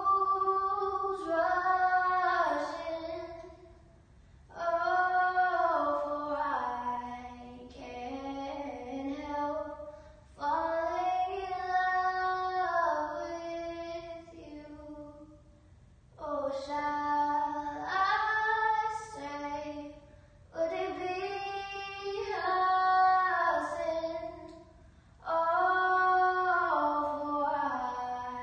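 A girl singing solo and unaccompanied, in long held phrases with short pauses for breath between them every few seconds.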